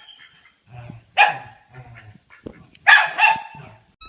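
A dog barking: one loud bark about a second in and a quick double bark near the end, with softer yips and sounds between.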